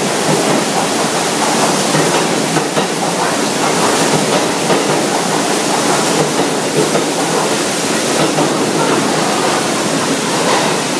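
Water gushing from a broken overhead pipe and pouring onto a subway train and platform, a loud, steady rush, mixed with the noise of the subway train in the station.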